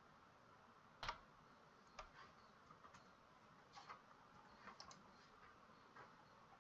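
Near silence with about six faint, sharp clicks spaced roughly a second apart, typical of a computer mouse or keyboard being operated.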